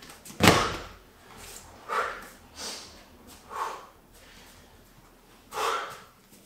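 A Bulgarian bag dropped onto the gym mat with one heavy thud about half a second in, followed by four short, breathy exhales from the exercising man.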